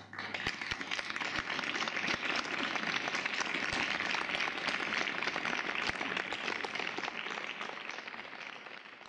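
Audience applauding, many hands clapping at once. It starts suddenly and fades out near the end.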